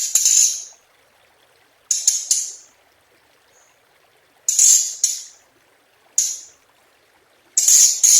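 Hồng hạnh, a songbird kept and trapped in Vietnam, singing: short, high-pitched phrases repeated about every one and a half to two seconds, each fading out quickly. It is a lure recording used to draw other birds of its kind.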